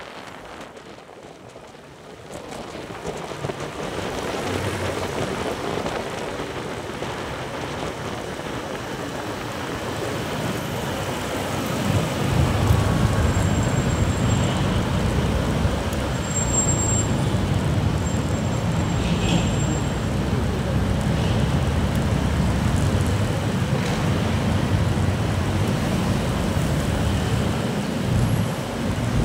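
City road traffic heard from a motorcycle riding in slow traffic. At first there is a rushing sound of tyres and wind, then from about twelve seconds in a steady low rumble of engines as the bike moves in a queue of cars and motorcycles.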